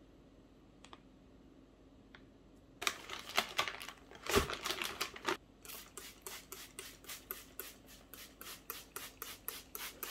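Kitchen prep noise: a knife chopping on a cutting board in an even run of quick strokes, about four or five a second. It follows a stretch of busier scraping strokes with one heavy thump.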